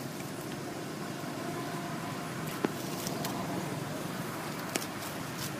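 Steady background hum with two sharp crackles of dry leaves, about two seconds apart, as macaques handle and shift in the leaf litter.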